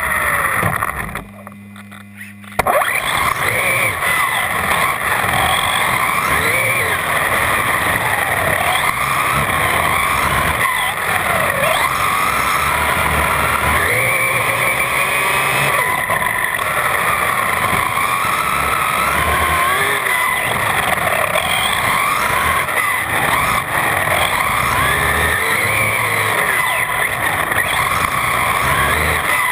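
On-board sound of an electric RC truck driven hard: the brushless motor's whine rises and falls in pitch with the throttle over steady tyre noise. It becomes loud about two and a half seconds in.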